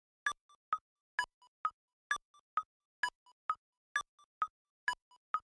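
Electronic intro music made of short, sharp pitched clicks, repeating in a strict pattern of about two loud hits a second with fainter ones in between.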